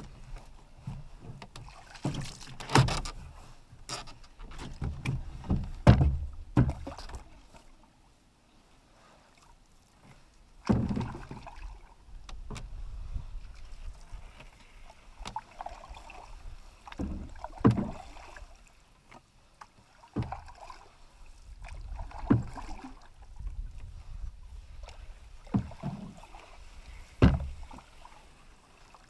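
Canoe being paddled: irregular splashing paddle strokes in the water, with sharp knocks of the paddle against the hull, and a pause in the strokes about eight seconds in.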